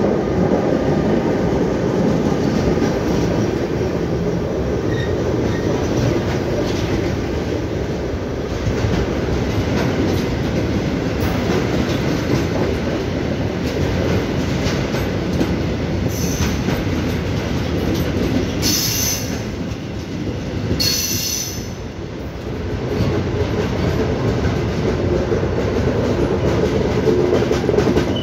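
A freight train hauled by an E483 electric locomotive passes close by, its tank and box wagons rolling past with a continuous rumble of wheels on the rails. There are three short, high wheel squeals in the second half.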